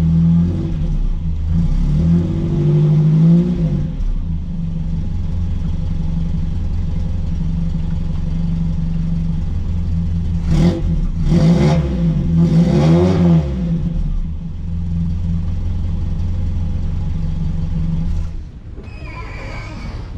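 1979 Toyota Corolla Trueno's four-cylinder engine idling steadily, revved up and back down a couple of seconds in, then given three quick revs in a row about ten seconds in. The engine tone cuts off near the end.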